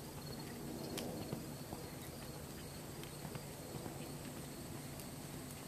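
Faint, irregular hoofbeats of a Welsh pony cantering on arena sand, over a steady outdoor background with a faint high tone.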